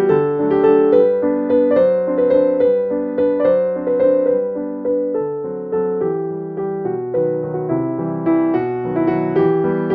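Background piano music: a gentle melody of struck notes at a steady pace, each note fading after it is played.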